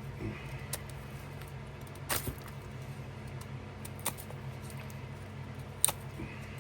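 Pocket knife blade scraping and shaving a green stick, four separate short strokes, the one about two seconds in the loudest and longest, over a steady low hum.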